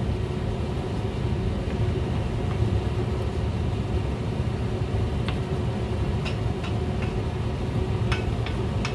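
Wooden spoons stirring chunks of chicken and potato in a stainless steel pot, with a few light knocks against the pot in the second half, over a steady low kitchen rumble and hum.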